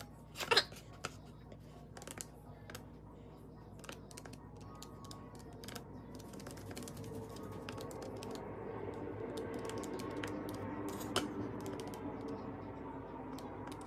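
Keys of a Texas Instruments TI-30X IIS scientific calculator pressed in quick, irregular taps. A low steady hum slowly grows louder under them from about halfway.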